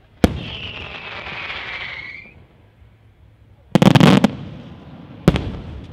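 Aerial firework shells bursting overhead. A sharp bang is followed by about two seconds of hiss with a falling whistle. About four seconds in comes a loud, dense cluster of bangs, and another single bang sounds near the end.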